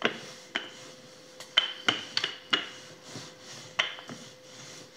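Wooden rolling pin rolling soft brioche dough out on a countertop, a soft rubbing broken by a series of sharp light knocks and clicks at uneven intervals.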